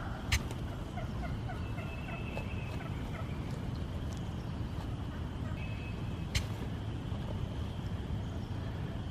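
A young male turkey (jake) calling, with two sharp knocks, one just after the start and one about six seconds in, over a steady low rumble.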